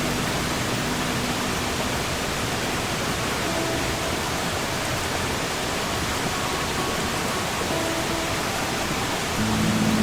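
Steady, unbroken rush of sea surf. A few faint held notes sound beneath it, and a louder low steady tone comes in near the end.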